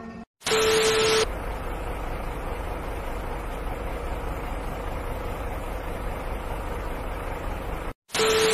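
TV-static glitch transition effect: a short loud burst of static with a steady beep, about half a second in and again near the end. Between the two bursts, steady vehicle noise with a low rumble from a truck carrying an oversized tank load.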